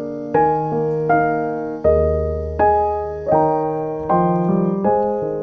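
Background music: gentle solo piano, with notes and chords struck about every three-quarters of a second, each ringing on and fading before the next.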